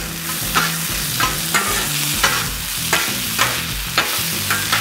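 Metal spatulas scraping and clacking on the steel Blackstone griddle top, about two to three strikes a second, as they chop and mix sliced ribeye, onions and cheese sauce. A steady sizzle of the food frying runs underneath.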